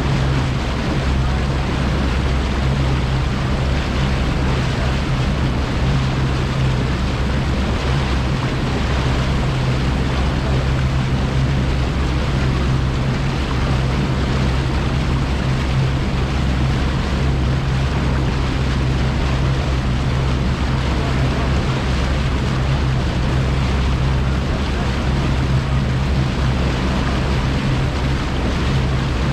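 Bass boat's outboard motor running at a steady cruising speed, a constant low hum, with wind and water rushing past the moving boat.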